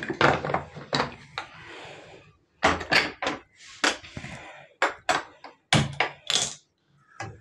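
Irregular knocks and clatter from a pressure cooker being handled: its whistle weight is fitted onto the lid's vent and the cooker is moved about on a gas hob.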